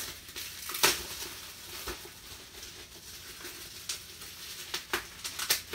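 Plastic wrap crinkling as it is handled and pulled at, with scattered sharp crackles, the loudest about a second in.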